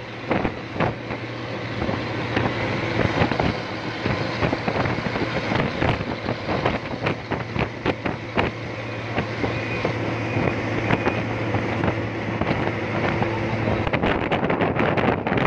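Bus engines running at speed with road noise and a steady low drone, heard from an open window of a moving bus, with wind buffeting the microphone.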